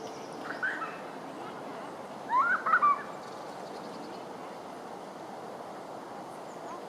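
Short bird calls: a couple of faint chirps about half a second in, then a louder cluster of short rising calls between two and three seconds in, over a steady background hiss.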